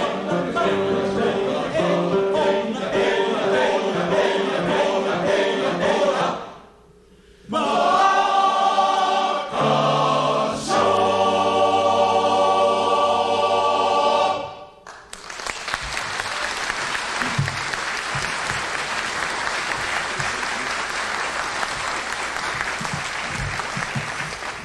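Men's chorus singing unaccompanied: a brief pause about a quarter of the way in, then loud held closing chords. The singing stops about halfway through and audience applause fills the rest.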